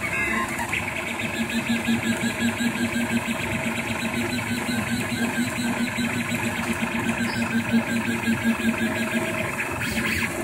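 Rostock MAX delta 3D printer running a print: its stepper motors buzz in a quick, even pulse as the print head moves back and forth over the part.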